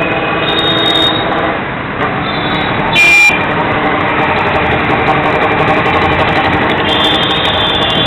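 Busy street traffic of CNG auto-rickshaws and motorcycles: small engines running, with horns honking now and then and one short loud horn blast about three seconds in.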